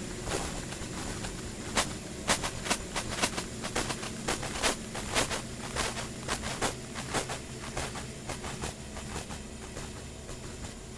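Harsh minimal noise-drone music: a steady low hum overlaid with irregular sharp clicks and crackles, several a second in the middle, thinning out near the end.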